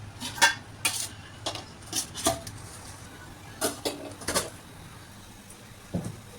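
Kitchen utensils clinking against dishes: about seven sharp clinks over the first four and a half seconds, then a duller knock near the end.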